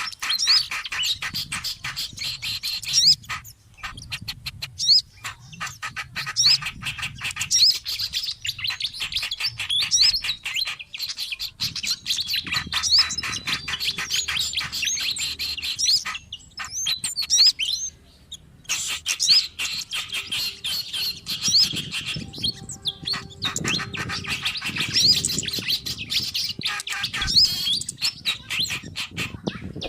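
Bird-lure recording of small songbirds chattering noisily: dense, rapid chirps and ticking calls mixing kerak basi, sikatan kipas (fantail), sogon and kemade, made to agitate and draw in wild birds. There are brief pauses a few times.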